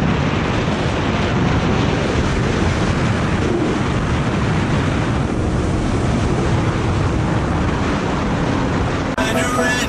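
Heavy wind rush on a motorcycle-mounted camera's microphone, over the Yamaha R6's inline-four engine, whose pitch rises and falls with the throttle. Electronic music cuts in abruptly near the end.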